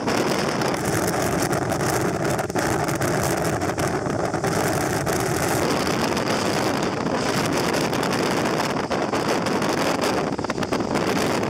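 Wind buffeting the microphone and the rush of water from aboard a boat running at speed, with a faint steady hum from about a second in to about halfway through.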